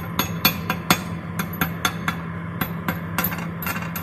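Chipping hammer tapping rapidly on a fresh arc-weld bead, about four to five metallic strikes a second, knocking the slag off a steel butt joint. A steady low hum runs underneath.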